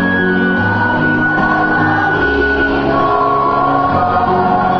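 Background music: voices singing a church hymn over held instrumental chords that change every second or so.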